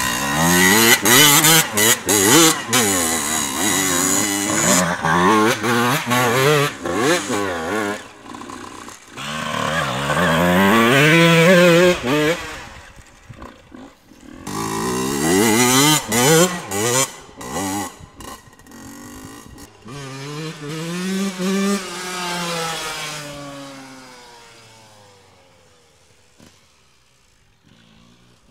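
Off-road motorcycle engines revving hard, pitch rising and falling with throttle and gear changes in several loud runs, then fading to faint over the last few seconds as the bike moves away.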